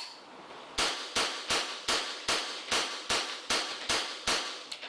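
A series of sharp, evenly spaced knocks, about ten of them at roughly two and a half a second, followed by a few fainter ones near the end.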